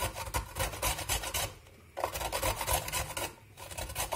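Carrot being grated by hand on a grater, with quick rasping strokes in three runs and short pauses between them.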